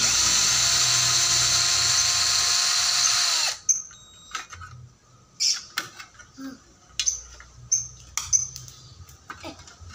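Benz Werkz BZ-8004 cordless drill turning a 10 mm socket to unscrew a motorcycle licence-plate bolt. It runs steadily for about three and a half seconds, then winds down and stops. A scatter of short, light clicks and taps follows.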